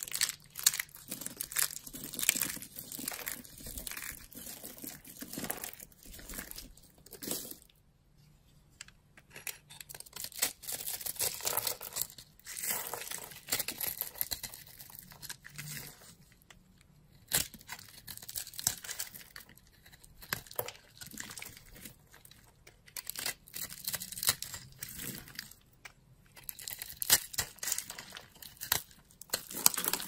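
Dry soap crunching and crackling as it is crushed by hand and cut with a knife into thin slices, in crackly bursts with short lulls between them.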